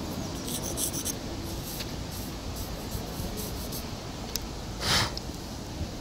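Soft pastel stick scratching and rubbing on rough asphalt in short strokes, with one louder, longer scrape about five seconds in.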